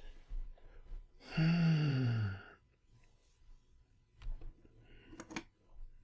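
A person's long voiced sigh, falling in pitch, starting about a second in. It is followed by a few short clicks near the end, such as a computer mouse makes.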